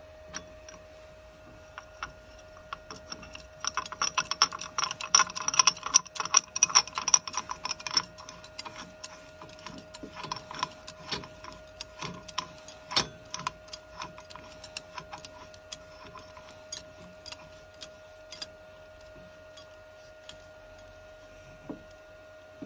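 Metal parts clinking and rattling as a piston is handled on and off a mounting fixture in a lathe's four-jaw chuck: a dense run of clicks about four to eight seconds in, then scattered clicks, over a steady hum.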